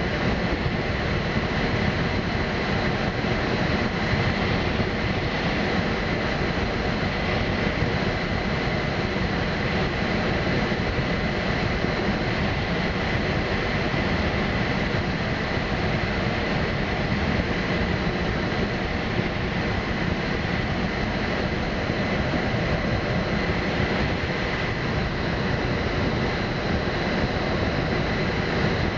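Steady rush of airflow and rumble inside a Slingsby Capstan glider's cockpit while it is towed behind a tug aircraft, with a thin steady high tone running through it.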